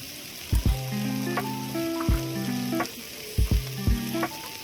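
Background music with sustained electronic notes and a kick-drum beat, over the steady sizzle of food frying.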